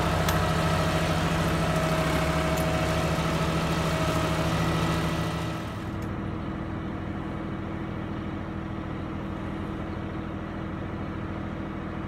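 Sonalika tractor's diesel engine running steadily close by; about halfway through the sound drops and dulls as the loaded tractor pulls away.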